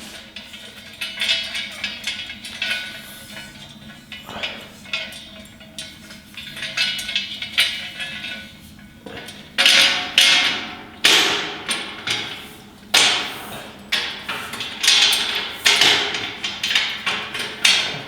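Metal side rails of a garden cart knocking and clanking against the cart's metal frame as they are hooked in and locked into place. Scattered light knocks at first, then a run of louder, ringing clanks from about halfway through.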